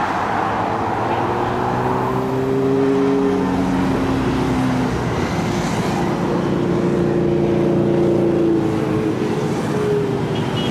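A stream of motorcycles in a convoy passing below, several engines at once, their tones sliding slowly in pitch as they go by, over constant road noise.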